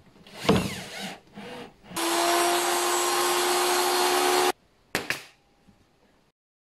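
Intro sound effects: a sweeping whoosh about half a second in and a few smaller swishes, then a loud steady whirring noise with a constant hum for about two and a half seconds that cuts off suddenly, followed by one short swish.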